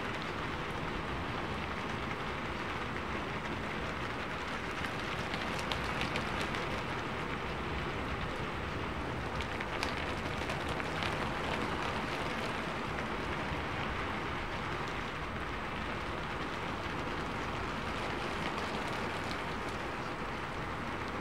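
Steady rain, an even hiss with scattered louder drops, used as the cover sound under which the subliminal affirmations are hidden.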